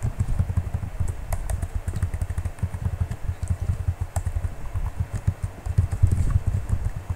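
Fast typing on a computer keyboard: a dense, irregular run of key clicks, each with a low thump.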